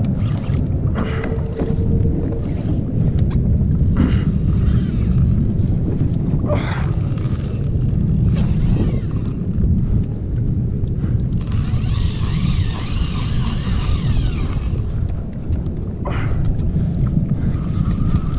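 Wind buffeting the action camera's microphone on open water as a steady low rumble. A few short knocks and a brief higher hiss come about two-thirds of the way in.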